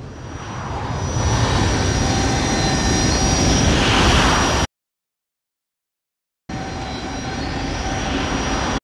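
Sound effect of the giant robot Moguera: a jet-like mechanical noise with a steady high whine, swelling in loudness and then cutting off suddenly. After about two seconds of silence, a shorter stretch of the same noise starts again.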